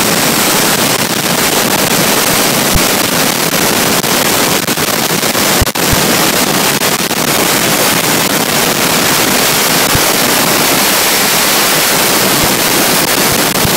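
Dry-ice blasting nozzle firing a jet of compressed air and dry-ice pellets at a stone stair, stripping graffiti paint. It makes a loud, steady hiss that dips briefly a little over five seconds in.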